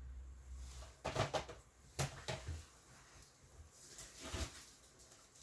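A few light clicks and knocks of hard plastic CGC comic slabs being handled and set down, about one, two and four seconds in.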